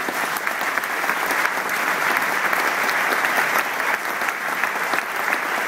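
Large audience applauding, many hands clapping in a steady, dense stream.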